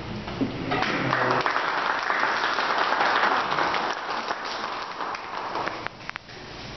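Small audience clapping. It starts about a second in and dies away after about five seconds.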